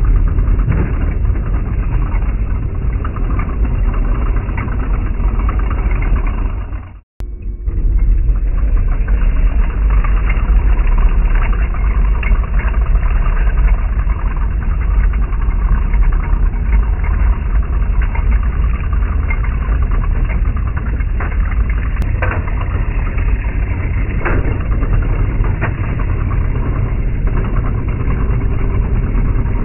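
Heng Long M1A2 Abrams RC tank running, a steady engine-like drone from the model's engine sound and drive. It cuts out briefly about seven seconds in.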